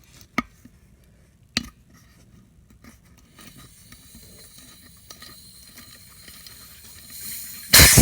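Two sharp clicks, then near the end a loud, steady hiss of air starts at a quad tire's valve stem, its valve core out.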